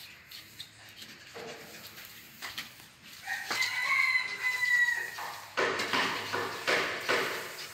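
A rooster crowing: one long, slightly falling call about three seconds in, followed by a rougher, noisier stretch.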